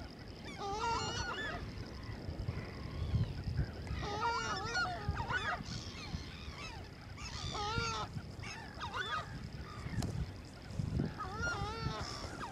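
A flock of large waterbirds calling from the marsh. The calls come in about five bursts a few seconds apart, with several birds overlapping in wavering calls, over a faint steady high whine.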